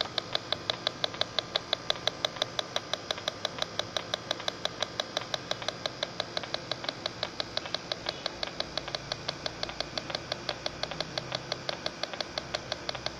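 Electronic refrigerant leak detector ticking out a fast, even train of short beeps, several a second, as its sensing probe is moved around the compressor.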